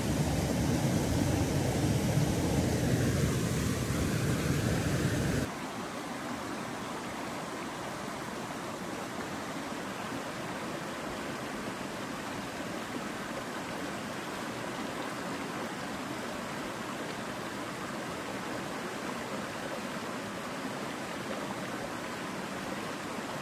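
Rushing water of a small trout stream, loud and close for the first five seconds or so, then after a sudden drop a quieter, even rush of flowing water.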